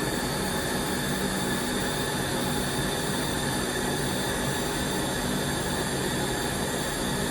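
LightWELD handheld laser welder firing a continuous pass: a steady hiss with a faint whir running under it, switched on with a click just before.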